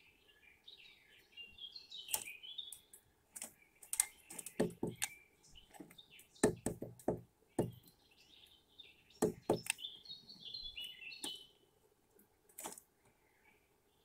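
Great spotted woodpecker pecking at seeds in a wooden tray feeder: irregular sharp knocks, some in quick runs of two or three. Other birds chirp in the background.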